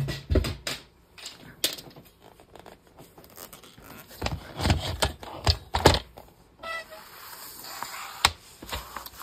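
Paper sheets being handled and a plastic Fiskars paper trimmer being set down and positioned on a cutting mat: a series of knocks and clicks, most of them about four to six seconds in, with paper rustling between.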